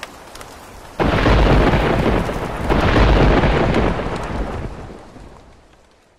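Thunderstorm sound effect: steady rain hiss, then a sudden thunderclap about a second in and a second rumble of thunder under two seconds later, fading away near the end.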